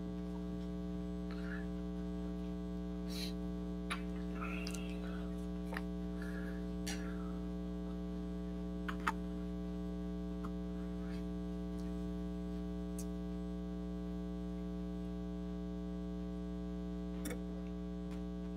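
Steady electrical mains hum, a low buzz with several overtones, with a few faint clicks and knocks scattered through it.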